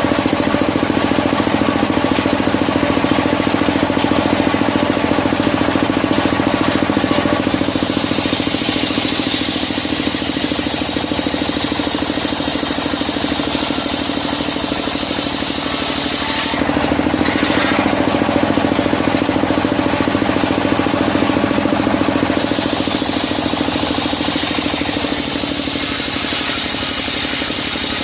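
Engine-driven sawmill circular saw running with a steady hum. About a quarter of the way in a high hiss joins as the blade cuts through medang kuning timber; it breaks off briefly about two-thirds of the way through, then carries on.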